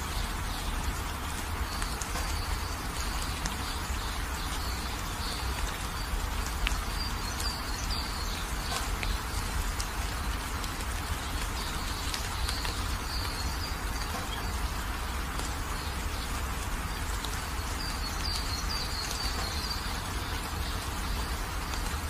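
Steady rain falling, an even hiss, with short high chirping calls breaking through a few times.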